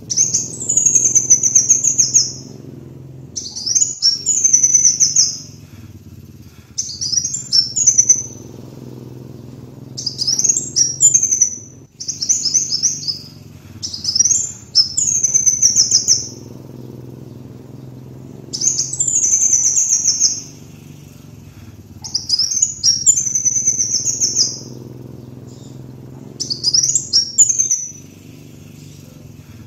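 Sunbird known in Indonesia as the kolibri wulung singing, in repeated high, rapid chittering phrases of one to two seconds each with short pauses between, used as a lure and tutor song. A faint steady low hum sits underneath.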